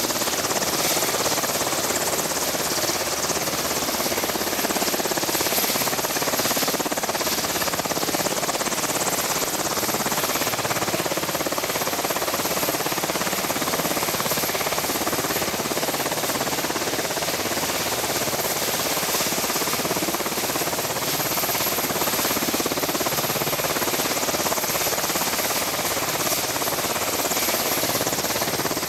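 Sikorsky VH-60 Night Hawk helicopter running on the ground: a steady, even noise of its twin turbine engines and turning rotor, with no change in pitch or level.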